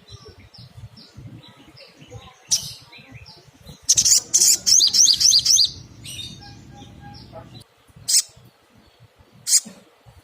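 Sunbird (sogok ontong) singing: a string of short high chirps, a loud rapid run of notes about four seconds in, then a few sharp, separate calls.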